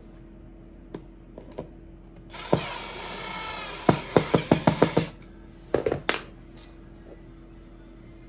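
A power tool runs for nearly three seconds, and a quick series of about seven sharp metal knocks sounds near its end. A second short cluster of knocks follows about a second later.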